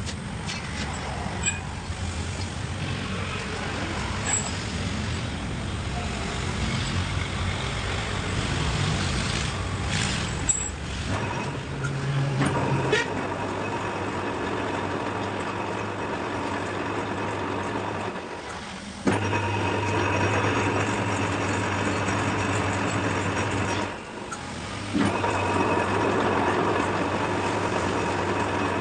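A workshop machine running with a steady hum and noise. It cuts out twice, about two-thirds of the way through and again near the end, starting up again within a second or so each time.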